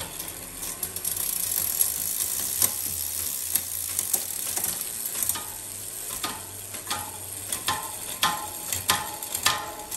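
Bicycle chain running through a Shimano GRX rear derailleur and cassette as the cranks are turned: a steady whirring hiss with scattered sharp clicks, more of them in the second half.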